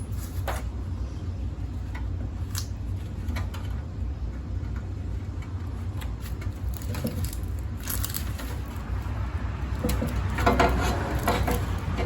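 Tools and metal mower parts clinking and knocking during hand disassembly, with scattered single clicks and a burst of clattering near the end, over a steady low rumble.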